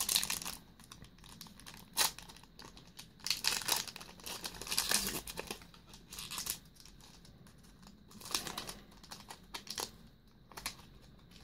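Foil wrapper of a Yu-Gi-Oh booster pack crinkling and tearing as it is pulled open by hand, in irregular scratchy bursts.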